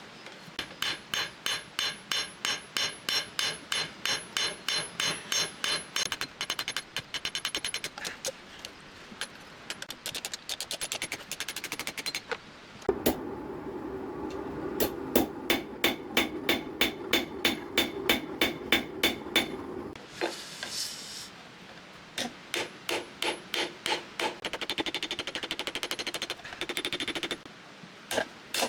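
Hand hammer striking hot spring steel on an anvil: fast, regular blows, about four a second, each with a high metallic ring. They come in runs with short pauses. For several seconds in the middle a steady low hum runs under the blows.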